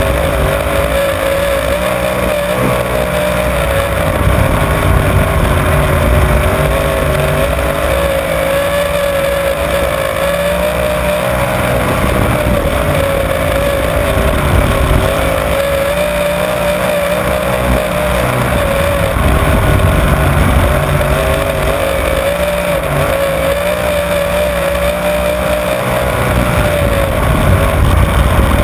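Onboard sound of a winged dirt-track sprint car's engine at racing speed during a race. One loud, continuous engine note wavers slightly up and down in pitch, with small swells in loudness, over a steady rushing noise.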